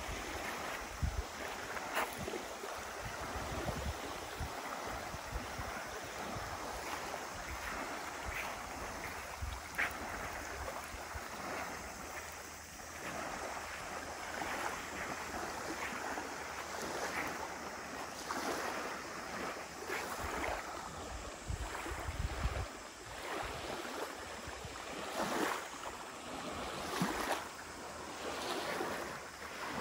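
Small lake waves lapping and washing up onto a pebbly shore, swelling every couple of seconds, with wind buffeting the microphone in low gusts.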